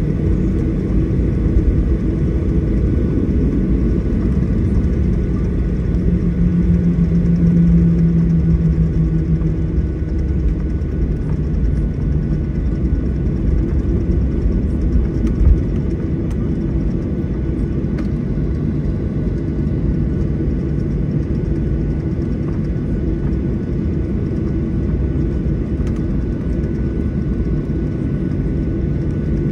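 Steady loud low rumble of a jet airliner in flight, as heard inside the cabin, with a faint steady whine above it. A deeper hum swells for a few seconds about a quarter of the way through, and there is a single thump about halfway.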